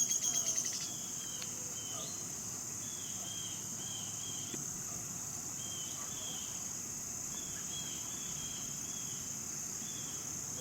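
Insects trilling steadily at a high pitch, with short chirps repeating every second or so; a louder rapid pulsing is heard for about the first second.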